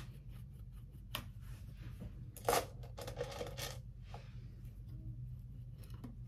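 Small makeup items being handled and set down: light clicks, a sharp clatter about two and a half seconds in, then a short rustle and a few more clicks.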